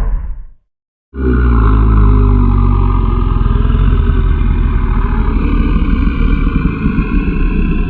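The tail of one horror sound effect ends, and after a short silence about a second in a long, loud, rough creature growl begins and holds steadily, deep and grinding.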